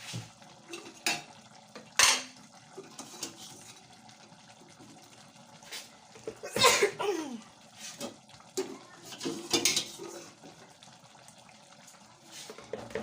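Cookware and utensils clattering: scattered sharp clinks and knocks of pots and spoons. The loudest comes about two seconds in, a longer clatter about seven seconds in, and a few more around nine to ten seconds.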